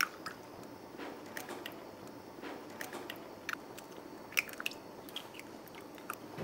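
Eggs being cracked open by hand over a glass bowl: scattered faint clicks and crackles of eggshell breaking, with a sharper tap right at the start.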